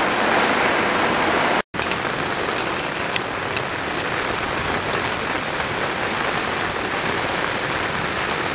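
Heavy tropical rain pouring down, a steady hiss with a few faint drop ticks, cut off briefly by an edit about a second and a half in.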